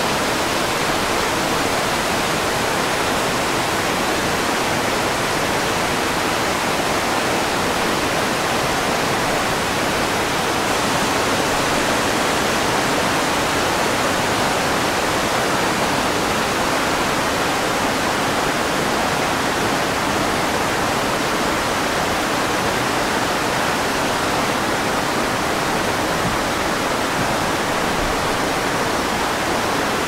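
Steady rush of falling water from the Sendan-todoroki falls, a 70 m waterfall, and the cascades of its rocky stream, an unbroken even roar.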